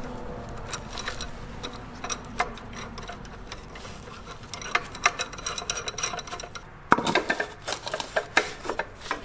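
Light metallic clicks and clinks of a homemade cylinder-liner extractor being fitted by hand: a washer and nut threaded onto its threaded rod, with a busier run of clinks about seven seconds in as the steel bar is handled over the liner.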